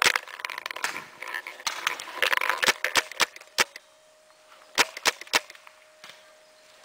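Paintball markers firing: strings of sharp pops in quick succession through the first few seconds, then three more shots close together about five seconds in.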